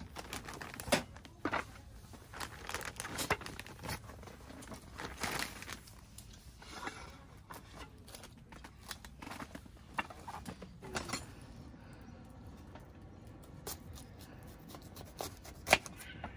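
Packaging being handled and torn open: plastic crinkling and tearing, with scattered light clicks and knocks, busiest in the first half.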